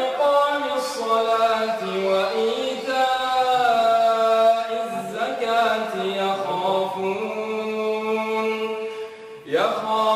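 A man's voice reciting the Quran in melodic tajwid style, holding long, ornamented notes that rise and fall in pitch, with a brief pause for breath about nine and a half seconds in.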